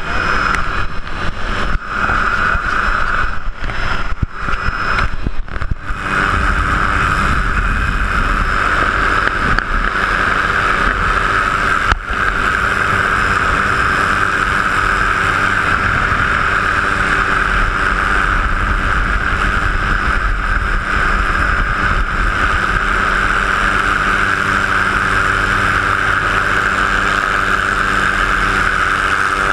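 Helicopter engine and rotors heard from inside the open cabin: a loud, steady rushing drone. It is uneven and dips several times over the first six seconds, then holds steady.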